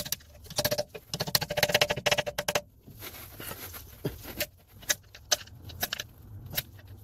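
Flat-blade screwdriver scraping and clicking against the circlip and metal housing of a rear lower ball joint while prying at it. A quick run of clicks lasts for the first couple of seconds, followed by scattered single metallic taps.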